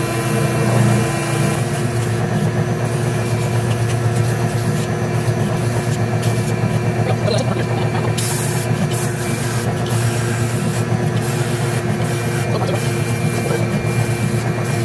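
Ridgid oscillating spindle sander running with a steady hum as a small wooden workpiece is pressed against its spinning sanding sleeve to smooth the edges.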